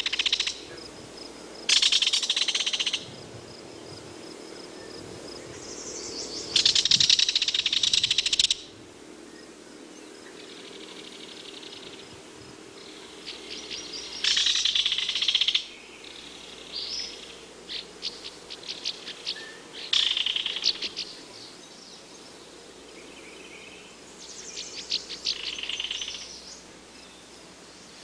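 Belted kingfisher giving its dry, rattling call in repeated bursts of one to two seconds, about six rattles, with shorter broken clicking runs between them.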